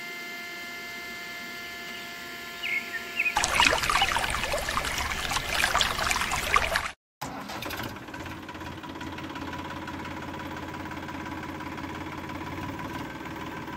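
Small electric motor of a miniature homemade tractor whining steadily as it belt-drives a toy grinder. About three seconds in, a louder crackling grinding noise joins as the grinder crushes grapes, and it stops abruptly a few seconds later. A quieter steady hum follows.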